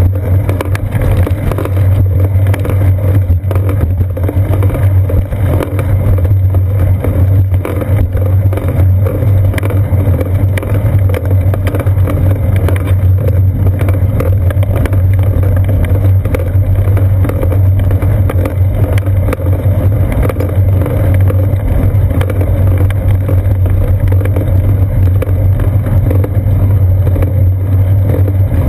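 Steady low rumble of a bicycle rolling on a paved road, heard through a seat-post-mounted GoPro Hero 2 that picks up the frame's road vibration.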